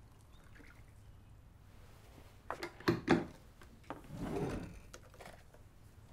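Kitchen handling sounds from a plastic blender jar and utensils: a few sharp clicks and knocks about two and a half to three seconds in, then a short soft rustling smear about four seconds in, and more light clicks near the end.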